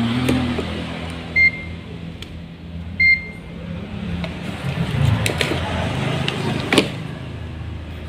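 Digital multimeter beeping twice, two short high beeps about a second and a half apart, over a steady low hum, with a few light clicks of the test probes on the circuit board.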